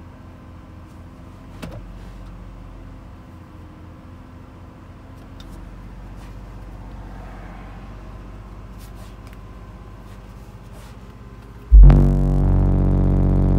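A single 12-inch subwoofer on a 6,000-watt amplifier, in a fourth-order enclosure with its 45-degree piece removed, burping a 47 Hz test tone: it starts suddenly near the end, very loud and distorted, a steady bass drone with a buzzy stack of overtones. Before it there is only a low steady hum.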